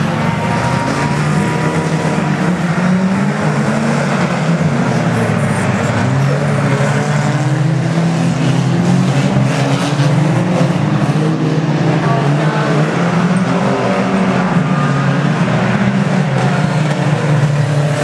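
Several banger racing cars' engines running hard around the oval. Their overlapping engine notes keep rising and falling as the cars accelerate and ease off.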